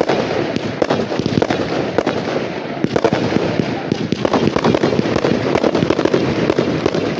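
Fireworks display in full swing: a dense, continuous barrage of bangs and crackling bursts.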